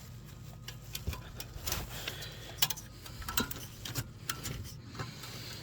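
Scattered light clicks and taps of plastic as a fire alarm detector head is handled and fitted up onto its mounting base, over a faint steady low hum.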